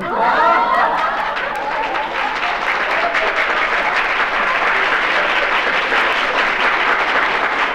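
Live audience laughing and applauding at a joke's punchline; the reaction breaks out suddenly and settles into dense, steady clapping.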